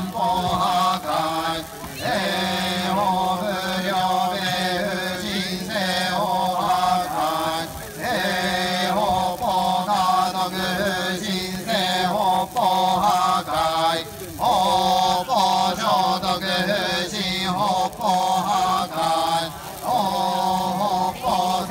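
Shugendō yamabushi chanting in unison, a steady held drone with short breaks for breath about every six seconds.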